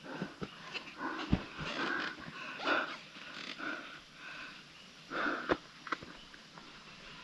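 A person breathing hard and panting, a string of heavy breaths in and out, with a few sharp knocks between them.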